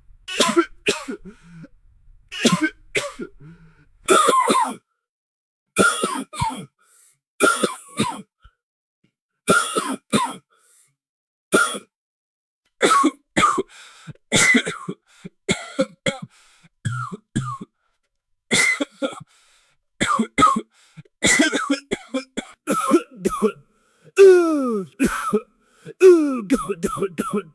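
A person coughing and clearing their throat again and again, in fits of short, harsh coughs with brief pauses between. Near the end a few longer coughs trail off with a voiced tail that falls in pitch.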